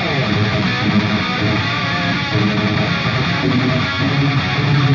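Background music led by strummed electric guitar, with a steady full sound.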